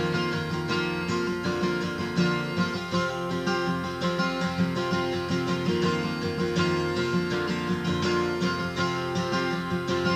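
Steel-string acoustic guitar strummed in a steady rhythm, an instrumental passage of a folk song with no singing.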